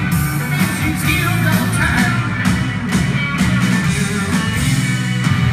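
Rock band playing live, heard from the audience: electric guitars, bass, keyboards and drums, with a steady drum beat.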